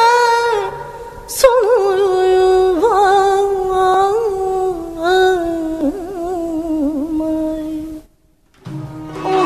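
A woman singing an Azerbaijani song in a drawn-out, ornamented style: long held notes with wavering trills, the melody slowly sinking. The voice breaks off for about half a second near the end, then comes back.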